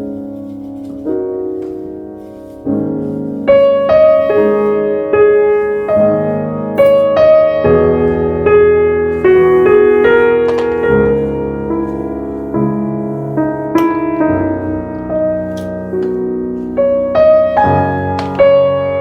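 Slow, gentle piano music playing sustained notes and chords.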